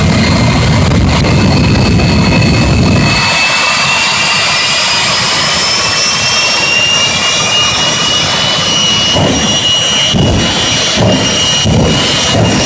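Jet engines of two jet-powered drag racers running at the start line: a loud, continuous roar with a high whine that slowly rises in pitch. A heavy low rumble fills the first three seconds, and uneven low thumps come in near the end.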